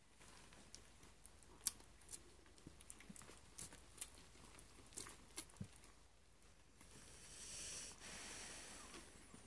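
Faint scattered clicks and scratching from Catahoula Leopard Dog puppies moving about, with a short rustling hiss about seven seconds in.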